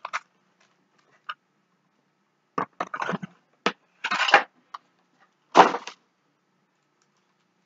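Hands handling a cardboard box of trading cards and its foil packs: a string of short knocks and scuffs, with two longer rustling scrapes about four and five and a half seconds in, the second the loudest.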